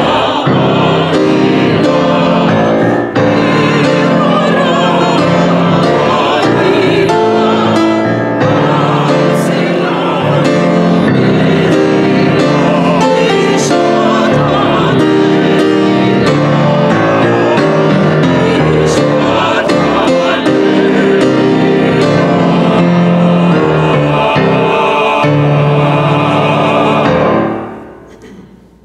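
Mixed choir of men's and women's voices singing with piano accompaniment, the sustained chords moving steadily. The music dies away near the end.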